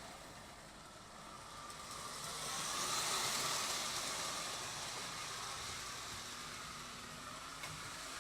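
Postwar Lionel O gauge steam locomotive and cars running on the tinplate track, a steady mechanical rumble and rattle of motor and wheels. It grows louder about two to three seconds in, then slowly fades.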